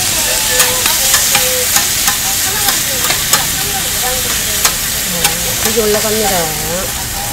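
Sausages, eggs and meat sizzling steadily on a hot flat-top griddle, with frequent sharp clicks as steel tongs and a spatula tap and scrape on the plate.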